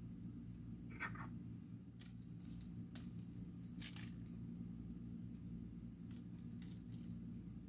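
Faint, soft rustles and light taps of fingers sprinkling powdered sugar onto cookie dough balls on parchment paper, the clearest about four seconds in. A steady low hum runs underneath.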